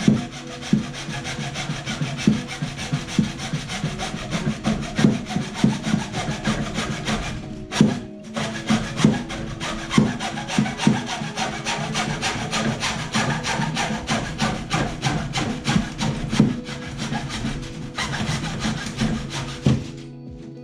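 A saw cutting through a drain pipe in a long run of rasping strokes, with a brief pause about eight seconds in. Background music plays underneath.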